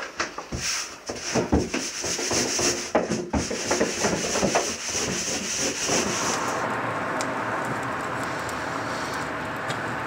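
Irregular rubbing and soft knocks of samsa dough being handled on a wooden board. About six seconds in this gives way to a steady rushing hiss with faint crackles from the charcoal fire in a barrel tandoor as its embers are stirred.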